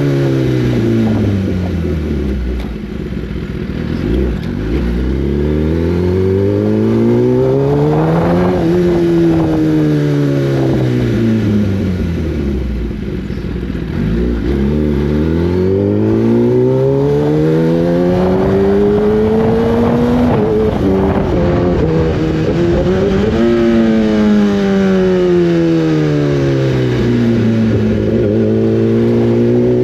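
Superbike's inline-four engine under way, its revs sweeping down and up several times as it slows and accelerates again, with a short dip in revs about two-thirds of the way through.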